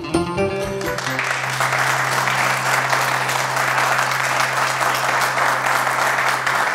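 An oud and tambourine band's last notes end about a second in, and an audience applauds with a low steady tone held under it.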